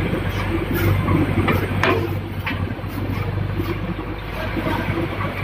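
Paver block making machinery running, a steady low motor hum with a few sharp knocks about one and a half to two and a half seconds in.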